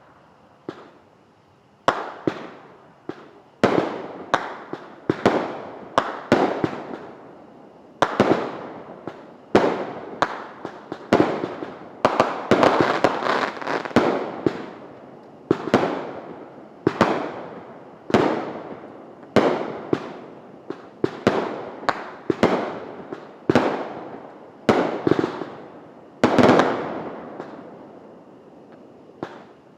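Consumer fireworks going off in a long run of sharp bangs, one to three a second, each trailing off in echo and crackle, thickest about halfway through.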